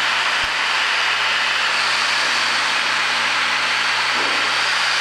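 Steady drone of a Piper PA-28's single piston engine and propeller with rushing airflow, heard inside the cockpit on final approach.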